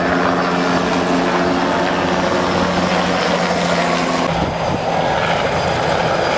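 Helicopter flying low overhead, its engine and rotor making a steady drone. A steady hum in the drone fades about four seconds in.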